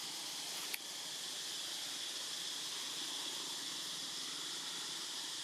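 A steady, even high-pitched hiss, with one short click about three-quarters of a second in.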